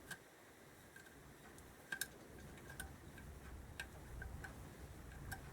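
Faint, irregular metallic ticks and clicks of a hand tool as the last screw is fitted and tightened, with a few sharper clicks about a second apart.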